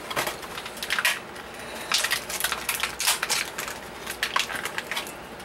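Irregular clicks and crinkling of small plastic toy parts and packaging being handled, in loose clusters about a second apart.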